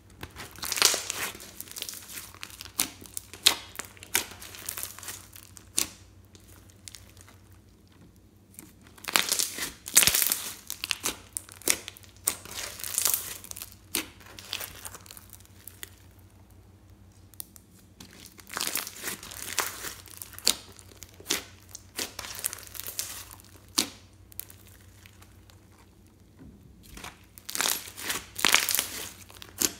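Hands stretching, squeezing and pressing a thick slime full of small foam beads, the slime giving off many small sticky crackles and pops as it is pulled and as trapped air is pushed through it. It comes in four bursts of handling with short quiet pauses between.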